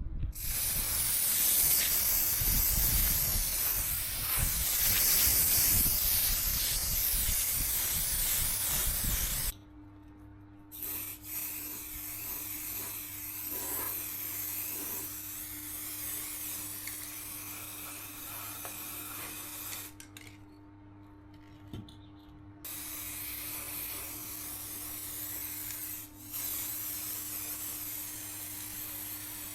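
A loud, steady hiss for about nine seconds, then a quieter hiss over a steady low hum, broken by two short abrupt gaps.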